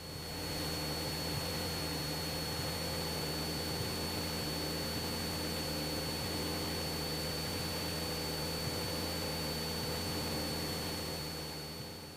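Cessna 172's single piston engine running steadily in flight: an even low drone with hiss over it and a thin, steady high whine.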